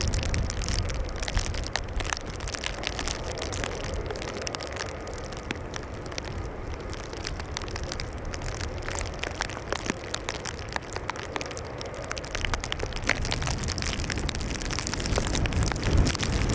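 Rain and wind noise on an outdoor microphone: an even hiss with many scattered ticks, over a low rumble that grows louder near the end.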